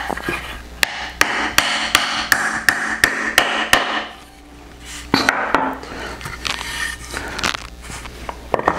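Hammer driving small nails by hand into a thin wooden board, with a quick run of light strikes at about three a second for four seconds. After a short pause come a few more separate strikes.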